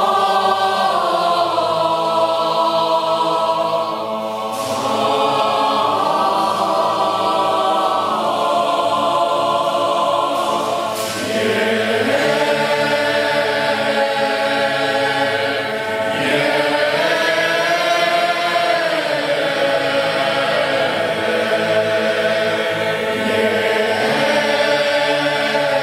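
Boys' choir singing long, sustained chant-like chords without words, with short breaks for breath about four, eleven and sixteen seconds in.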